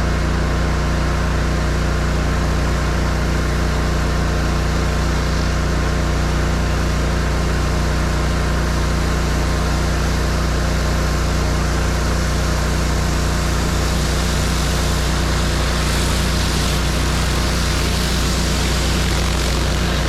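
Pressure washer engine running at a constant speed, a steady drone under an even hiss.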